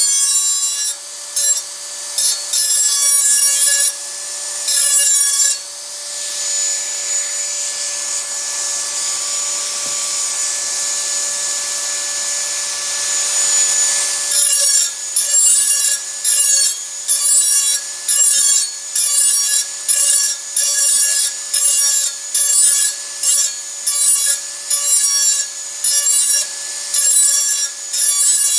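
Dremel 4000 rotary tool sharpening a metal tool edge, running at high speed with a steady high whine. The grinding is continuous for several seconds in the middle, then turns into short repeated passes a little more than once a second.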